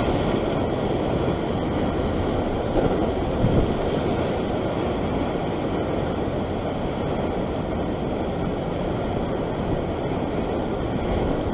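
Heavy ocean surf breaking and washing over sandstone rock ledges, a continuous loud rushing, with wind buffeting the microphone.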